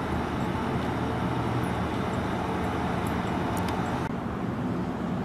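Electric heritage streetcar running with a steady low hum under an even rush of vehicle noise. The higher hiss drops off suddenly about four seconds in.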